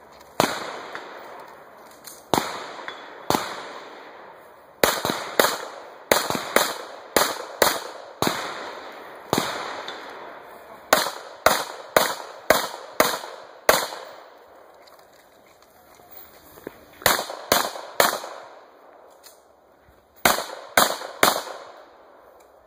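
Gunfire from a competitor's gun during a multi-gun stage: about thirty single shots, a few spaced ones at first, then quick strings of several shots a few tenths of a second apart, a lull of a few seconds, and two more fast strings near the end. Each shot is sharp and trails off with a short echo.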